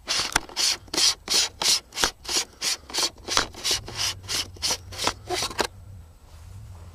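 A hand rubbing back and forth over the front of a camcorder's fisheye lens, right against the built-in microphone. About seventeen even rubbing strokes come at roughly three a second and stop about a second before the end.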